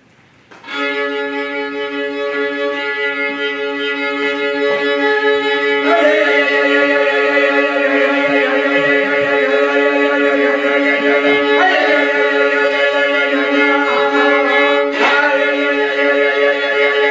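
Instrumental music: a held chord of steady notes starts about a second in, and about six seconds in a higher wavering line joins over it, a little louder.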